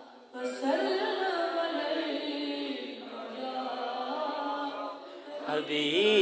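The durood, the Arabic salutation on the Prophet, chanted to a slow, drawn-out melody. It begins about half a second in. Near the end a louder voice comes in close to the microphone.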